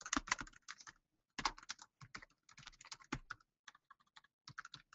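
Computer keyboard being typed on: quick, uneven runs of quiet key clicks, with a short pause about a second in.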